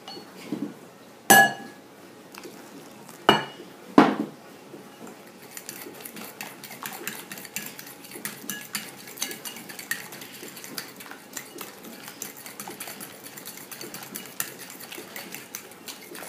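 A metal fork beating a thin pastry-cream batter in a ceramic bowl, its tines clicking rapidly against the bowl. In the first four seconds come three loud, sharp clinks, the first one ringing briefly, before the fast steady beating starts about five seconds in.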